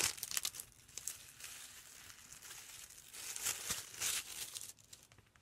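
Clear plastic wrapping crinkling and crackling as it is handled and pulled open by hand. Louder crackles come at the start and again about four seconds in, then it dies down just before the end.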